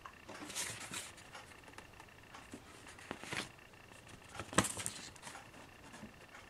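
Paper instruction sheet rustling and crinkling as it is handled and a page is turned, in short scattered rustles, the loudest about four and a half seconds in.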